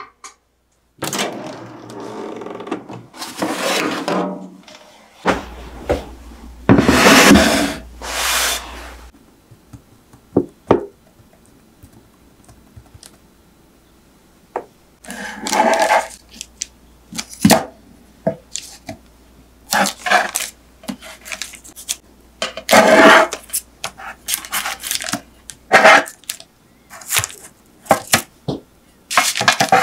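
Metal tongs clicking and clattering against a baking tray lined with baking paper as soft baked sweet-potato slices are picked up and turned over, in a string of short sharp clicks. In the first several seconds come a few longer rustling scrapes of the tray and paper being handled.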